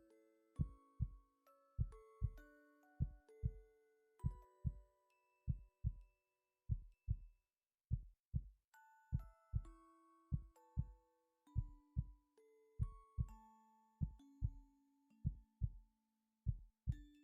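A person's heartbeat: soft low double thumps, one lub-dub about every second, steady throughout. A gentle melody of held notes plays along with it.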